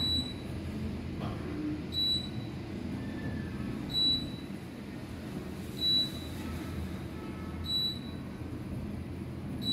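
Otis Series 2 elevator car descending with a steady low rumble, and a short high beep about every two seconds as it passes each floor.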